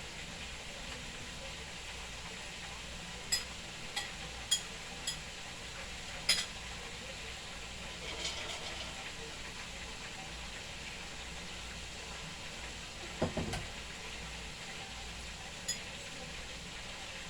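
Chicken frying in hot oil in a pot, a steady sizzling hiss, with a few light clinks of utensils on dishes and a dull knock about 13 seconds in.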